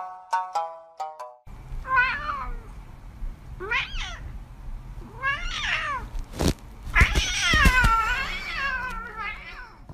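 Cat meowing: three short meows spaced a second or two apart, then a long, drawn-out meow rising and falling near the end, with a few sharp taps just before it. A bit of plucky background music plays at the very start, before the meowing.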